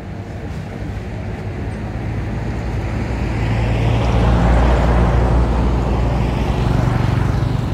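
A motor vehicle passing close by, its engine hum and road noise swelling to a peak about halfway through and then fading.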